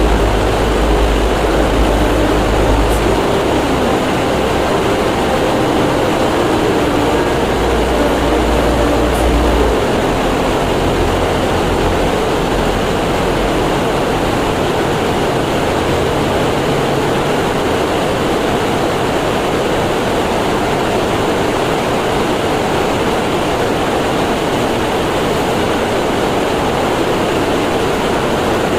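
Steady, loud mechanical rumble and hiss of running machinery. A deep low hum underneath drops away about ten seconds in.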